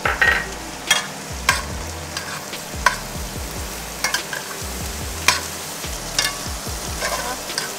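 Gnocchi frying in olive oil and butter in a sauté pan, with a steady sizzle. A utensil stirring them clicks and knocks against the pan every half second or so.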